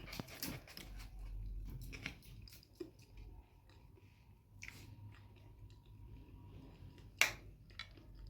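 Soft, close chewing with scattered small mouth clicks, and one sharper click about seven seconds in.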